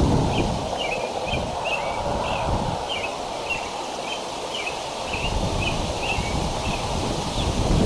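Short, high bird chirps repeated about twice a second, stopping shortly before the end, over wind rustling the leaves and buffeting the microphone. The wind eases in the middle and picks up again near the end.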